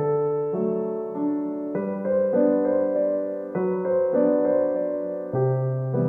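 Background music: slow, sustained keyboard chords that change every second or so.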